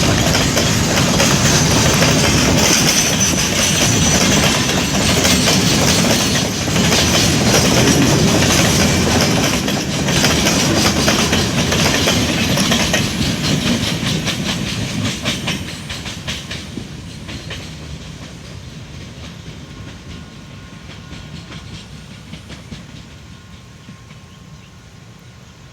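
Grain hopper wagons of a long freight train rolling past, wheels clacking over the rail joints. Over the last ten seconds or so the sound fades steadily as the train moves off.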